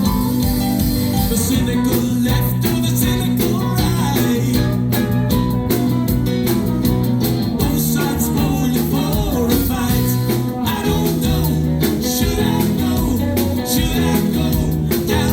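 A live rock band playing, with electric guitar, bass and drums.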